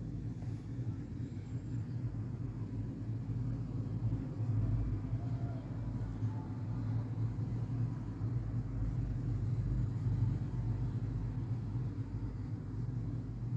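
Steady low rumble throughout, with no distinct events.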